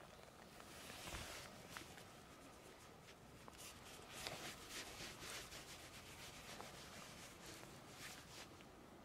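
Faint, soft rubbing and brushing of a tabby cat's fur as a hand strokes its back, in a few short strokes.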